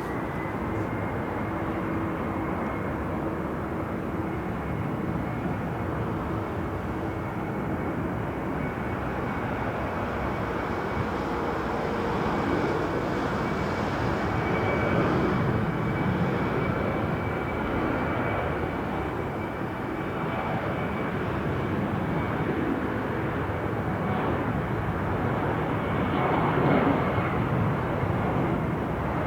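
Jet airliner engines passing close by: a continuous rush of jet noise with a steady high fan whine, growing somewhat louder in the middle and again near the end.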